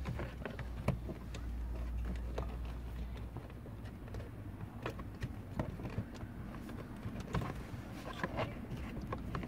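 Scattered light plastic clicks and knocks as the cabin air filter's access cover is fitted back into its housing behind the glove box of a Toyota Sienna, over a low rumble that is stronger in the first few seconds.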